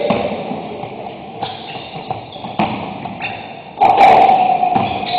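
Basketball game sounds on a hardwood gym floor: the ball bouncing and sneakers squeaking as players run, with a loud knock about four seconds in as a shot reaches the basket.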